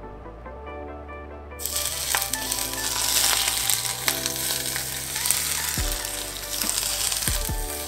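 Hot oil poured over minced garlic, scallions and sesame seeds on cooked shrimp and vermicelli, sizzling hard. The sizzle starts suddenly about a second and a half in and keeps going, over soft background music.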